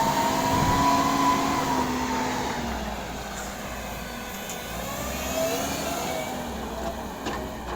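A heavy vehicle's engine running, its pitch climbing over the first second and then sinking as it eases off, before rising again about five seconds in.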